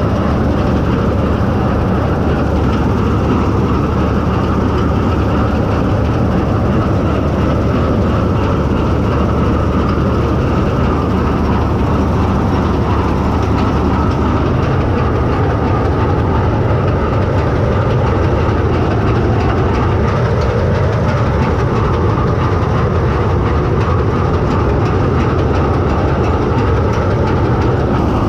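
Bizon Z056 combine harvester running steadily at working speed while harvesting triticale: a loud, unchanging rumble of the diesel engine and threshing machinery.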